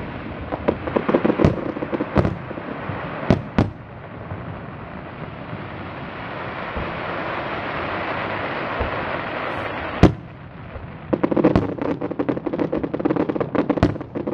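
Fireworks display: sharp bangs of shell bursts over crackling, then a steady hiss that swells for several seconds, broken by one loud bang about ten seconds in and followed by dense crackling and popping.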